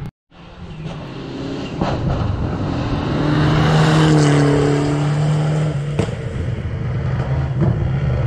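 Rally car passing at speed on a gravel road, its engine at high revs, building to loudest as it goes by about four seconds in and then fading. The sound cuts out briefly at the very start.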